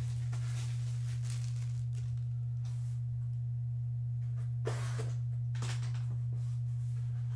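A loud steady low hum, with scrapes and rustles of a cardboard trading-card box being handled and its seal slit with a box cutter, the sharpest scrapes a little past halfway.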